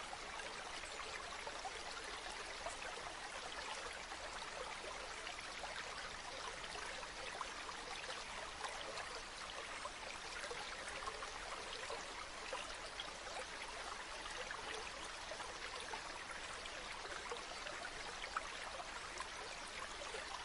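Running water of a small stream flowing steadily, with a fine, constant patter of little splashes.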